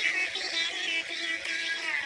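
A girl singing in a high-pitched voice over a backing track with sustained low notes: a deliberately bad imitation of a pop singer's vocals.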